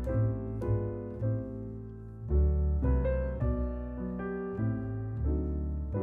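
Piano music with no voice: chords struck one after another over sustained deep bass notes.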